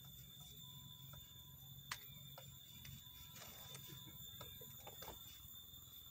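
Near silence: faint outdoor background with a steady high tone and a few small clicks and rustles, including one sharper click about two seconds in.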